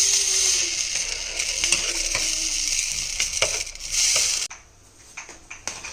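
Pan of gravy with chopped red onion sizzling on the stove, with light clicks of a spoon stirring in the pan; the steady hiss cuts off suddenly about four and a half seconds in, leaving only a few clicks.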